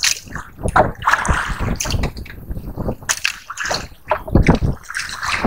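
Choppy sea water sloshing and splashing against a small boat, in irregular bursts.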